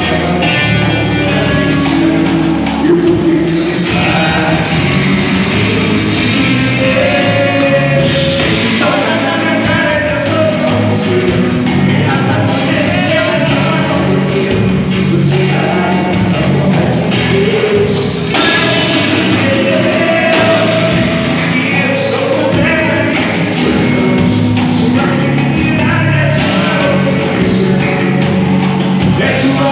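A band playing live with a singer, loud and steady throughout.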